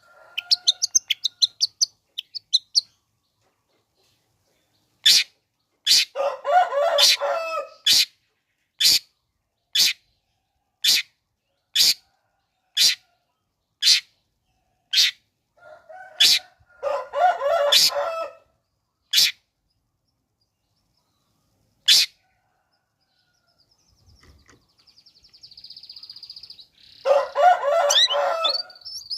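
Long-tailed shrike singing: a quick run of high chattering notes, then sharp single calls about once a second, broken three times by a harsh, scratchy chatter. Near the end it gives a fast buzzy trill.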